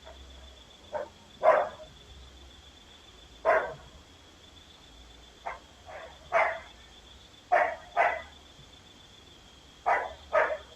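A dog barking: about ten short barks, mostly in pairs, a second or two apart, over a faint steady high tone.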